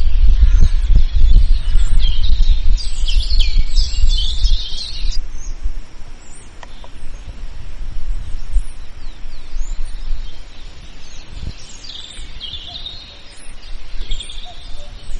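Forest birds chirping in quick high calls, in two busy spells, one a few seconds in and another near the end, over a steady outdoor hiss. A low rumble runs under the first few seconds, then dies away.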